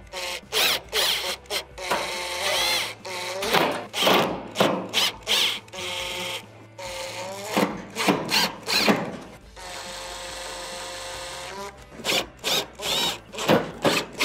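Makita cordless drill/driver running Phillips screws into a range's sheet-metal back panel in a series of short trigger bursts, the motor pitch rising and falling with each one. About ten seconds in there is one longer, steady run.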